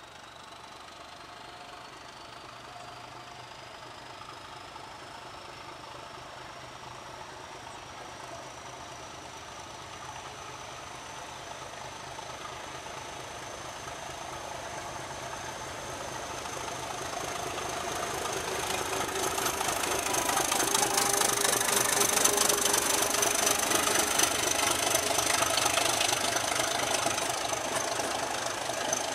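Czech class 749 'Bardotka' diesel locomotive working under load as it hauls an express train toward and past the listener, its diesel engine growing steadily louder for about 20 seconds. A high whine rises in pitch during the first ten seconds, then holds steady. In the second half the wheels and carriages rattle past close by.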